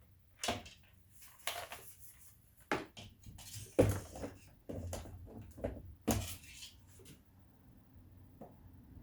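Irregular knocks and clicks of tools, screws and plastic trim being handled on a car door while its inside panel is refitted, the loudest a sharp knock about four seconds in.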